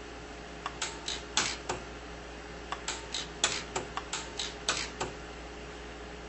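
Sunstone Orion 150s pulse arc welder firing a series of short, sharp snaps as its tungsten electrode arcs onto a titanium eyeglass frame, laying down sterling silver fill wire. There are two quick runs of pulses, about five and then about ten, each a fraction of a second apart.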